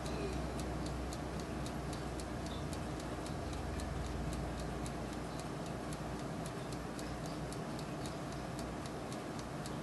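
Turbo convection oven running while pork chops cook: a steady hum of the fan and moving hot air, with even, fast ticking of about four ticks a second on top.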